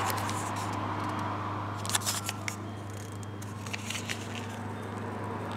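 Paper-foil alcohol wipe packets being handled: short crinkles and light clicks in a cluster about two seconds in and again near four seconds, over a steady low hum.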